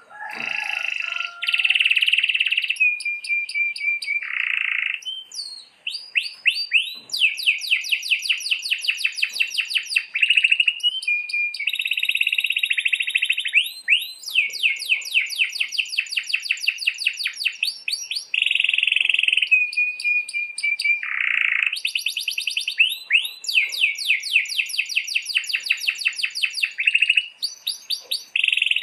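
Domestic canary singing a long, unbroken song of rolls: rapid runs of repeated notes, sweeping trills and buzzy held notes following one another with only brief breaks.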